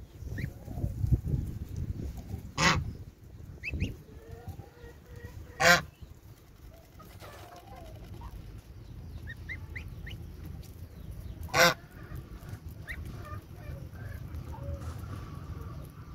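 Domestic geese with goslings: a goose gives three short, loud honks, about three, six and twelve seconds in. Between the honks the feeding goslings give faint, short rising peeps.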